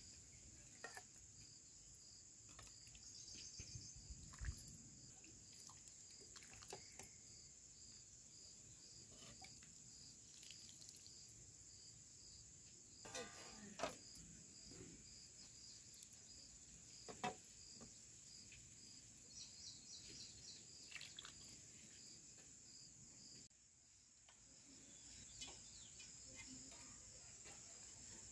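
Faint, steady chirring of crickets, with a few soft clinks of a steel ladle against steel plates as the crab curry is served.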